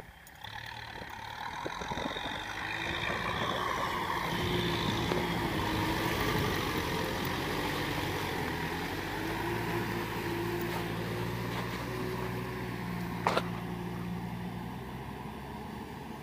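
Kubota tractor's diesel engine working under load through flooded paddy mud, its note climbing over the first few seconds and then running steadily. A single sharp click sounds about thirteen seconds in.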